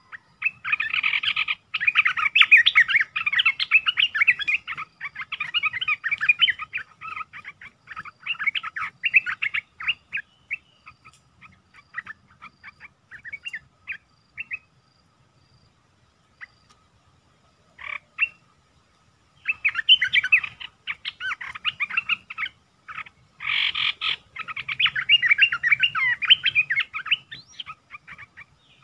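Bulbuls (olive-winged bulbul) calling in long bursts of rapid chattering notes. They break off for a few seconds in the middle and start again. This is decoy trapping, where a caged bird's calls draw a wild one.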